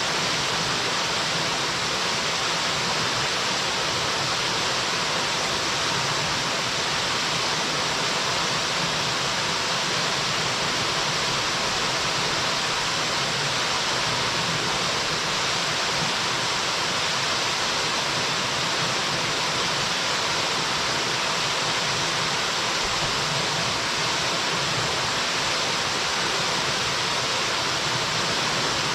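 Waterfall falling steadily, a constant even rush of water with no change.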